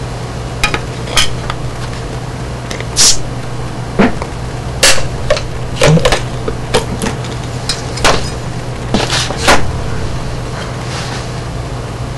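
Irregular sharp clicks and clinks of a glass beer bottle being handled and its crown cap pried off, picked up from about ten feet away by a homemade electret-microphone amplifier, over its steady low hum and hiss.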